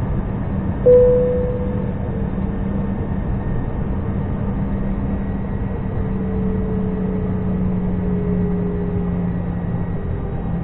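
Cabin noise of an Airbus A320-214 taxiing on its CFM56 engines at low power: a steady hum and rush with a whine that slowly drops in pitch. A short ringing tone sounds once about a second in.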